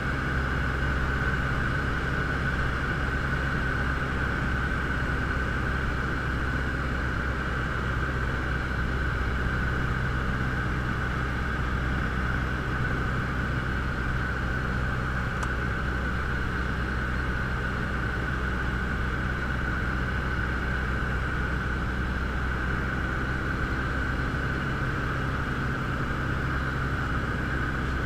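Robin DR400 light aircraft's piston engine and propeller droning steadily, heard from inside the cockpit.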